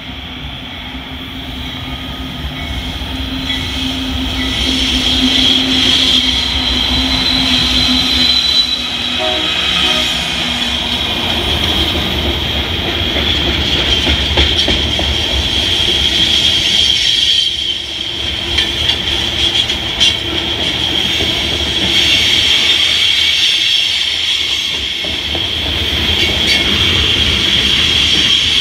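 BNSF freight train passing close by: the diesel locomotives run up and grow louder over the first few seconds, then a long string of loaded-looking tank cars rolls past. The steel wheels keep up a steady high squeal on the curving track, with clicks from the wheels over the rail joints.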